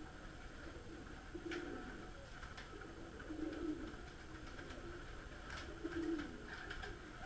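Domestic pigeons cooing, several low calls a couple of seconds apart, with a few sharp clicks and wing flutters as birds fly between perches.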